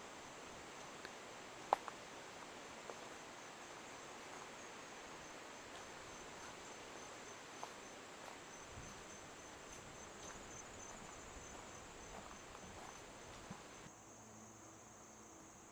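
Insects trilling steadily at a high pitch over a faint hiss, with a few light clicks; the hiss drops away near the end.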